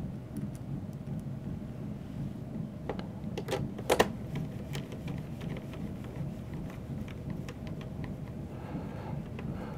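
Screwdriver driving small screws into a laptop's ABS plastic bottom case: scattered light clicks and ticks of the bit and screws, with a sharper click about four seconds in, over a steady low hum.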